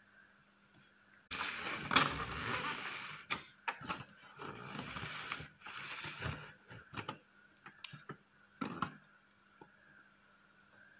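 Clear plastic cake dome and base being handled, crinkling and crackling with many sharp plastic clicks for several seconds, followed by a few separate clicks near the end.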